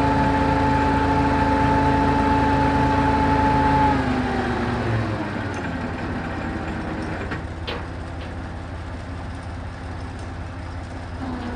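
Truck crane's diesel engine running steadily at raised revs; about four seconds in, the revs fall away and it settles lower and quieter. A faint knock follows later.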